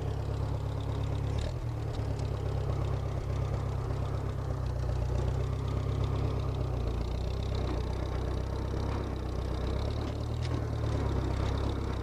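Case 310 crawler dozer's gasoline engine running steadily with the choke partly on, shortly after a cold start.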